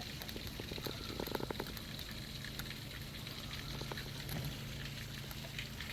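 Hurricane rain and wind heard from indoors: a steady hiss with many small scattered ticks of rain patter, over a low steady hum.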